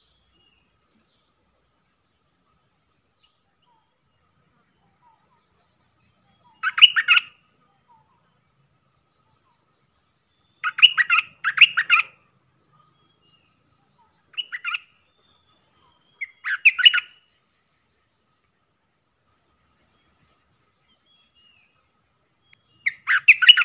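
Stripe-throated bulbul singing in short phrases of about half a second, six in all, spaced a few seconds apart. A fainter, higher twittering from another bird comes twice in the second half.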